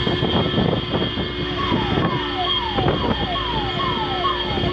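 Siren sounding a repeated falling tone, about two sweeps a second, starting about a second and a half in, over the engine and road noise of a car driving fast, heard from inside the car.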